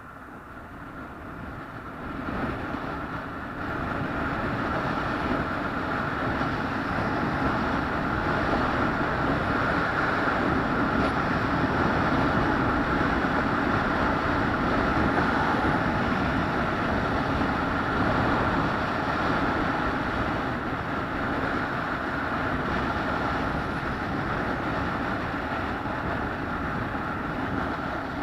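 Steady running noise of a moving vehicle, growing louder over the first few seconds and then holding even.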